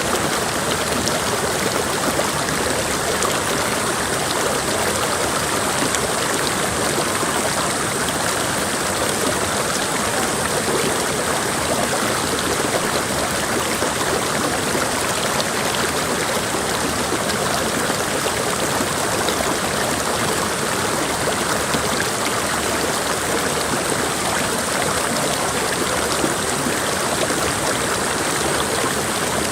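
Mountain creek water rushing steadily over rocks, a continuous even flow.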